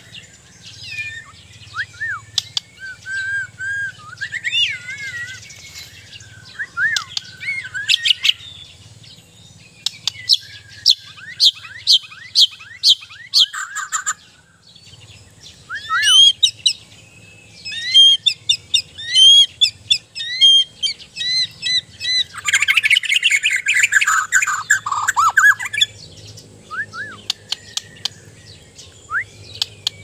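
White-rumped shama singing a varied song of gliding whistles and fast runs of sharp repeated notes. A louder, harsher, denser phrase comes a little past the middle.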